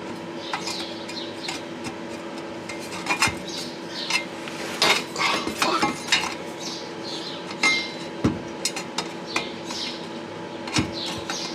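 Irregular metallic clinks and knocks as steel exhaust pipe sections and tools are handled and set in place for tack welding, over a steady faint hum.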